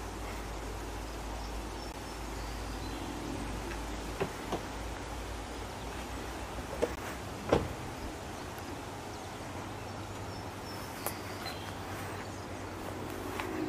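Steady outdoor background noise at an idle railroad crossing, with a low rumble during the first four seconds and a handful of brief, sharp chirps and clicks scattered through.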